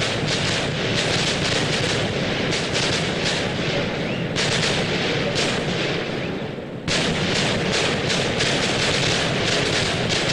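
Firecrackers going off in a rapid, continuous barrage of bangs that run together. The barrage thins out about four seconds in, then comes back sharply about seven seconds in.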